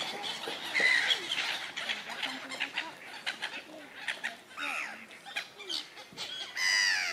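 Birds calling around a park pond: a scatter of short calls, with louder pitched calls about a second in, around halfway and near the end.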